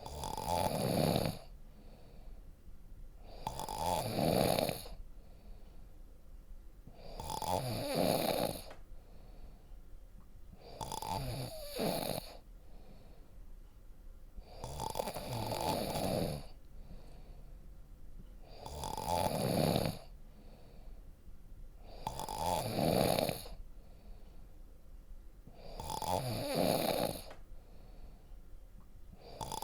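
A person snoring deeply and steadily, about eight snores, one every three and a half to four seconds, with quiet breathing between them.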